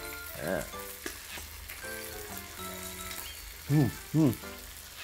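Thin-sliced kalbi beef sizzling steadily on a hot grill. A person hums twice briefly, about four seconds in.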